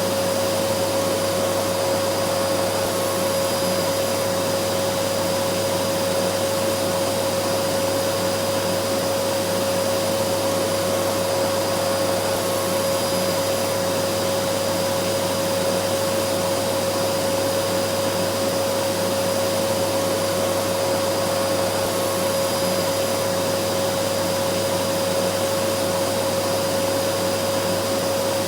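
Vacuum cleaner running steadily: an even motor whine with a strong single hum over a hiss of rushing air, unchanging throughout.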